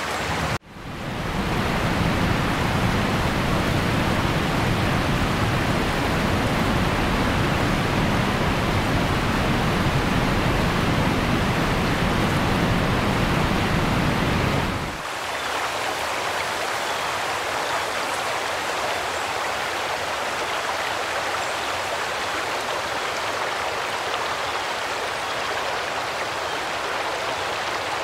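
Rushing floodwater on a street, with water surging up out of an overflowing drain: a steady, loud rush. It breaks off briefly just after the start; until about halfway it carries a deep rumble, then it turns to a thinner, lighter rush.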